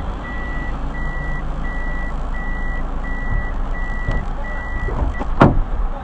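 A vehicle's electronic warning beeper sounding a steady high beep about three times every two seconds, over a low engine and traffic rumble. A single sharp knock comes about five and a half seconds in.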